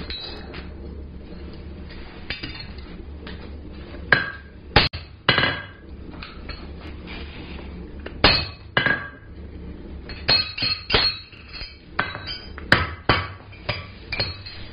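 Hammer striking a steel punch over the anvil to drive a stuck slug out of a hole punched in a mild steel bar, each blow a sharp ringing clink. A few spaced blows come about four to five seconds in, two more about eight seconds in, then a quicker run of strikes through the last few seconds.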